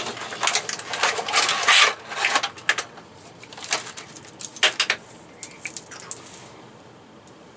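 Plastic packaging crinkling and rustling as a grip arm tripod is unwrapped by hand, with scattered clicks and knocks of the handled parts. Dense for about the first two seconds, then sparser, and quiet over the last two seconds.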